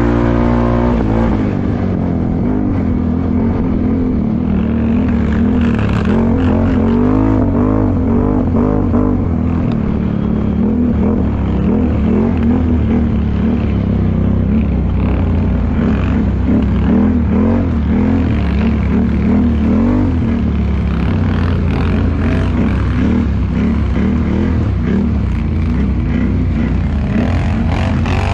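ATV engine running under load off-road. Its revs rise and fall again and again as the throttle is worked.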